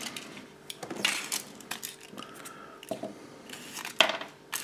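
Foil-wrapped chocolate shell halves of a Kinder Surprise egg being handled and pulled apart: light foil crinkles and small clicks, with a sharper click about four seconds in.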